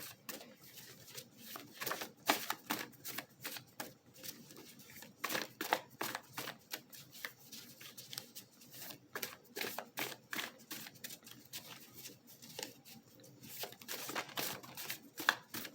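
Tarot cards being shuffled by hand: a run of quick irregular card flicks and rustles.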